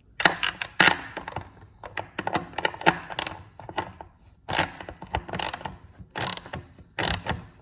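Ratchet wrench tightening 13 mm nuts on a sewing-machine motor's mounting bolts: a run of clicks, with louder ratcheting strokes about once a second in the second half, until the lock washers are drawn flat.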